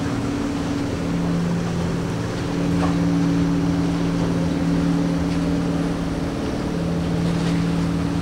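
A boat engine humming steadily at two low pitches over a haze of wind and water noise. The higher note drops out for about a second, a little after the start.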